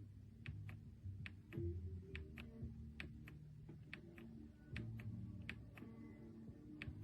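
Keystrokes on a YUNZII B75 Pro mechanical keyboard: irregular clicks about two or three a second, over soft background music.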